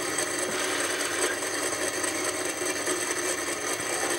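Steady buzzing noise with several constant high tones from a CRT television and its supply, running overvolted at about 320 volts AC, 50 hertz.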